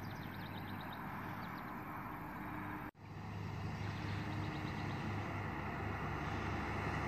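GMC Yukon SUV driving toward the camera, its engine and tyre noise slowly growing louder. The sound drops out for an instant about three seconds in. Faint high chirps sit in the background.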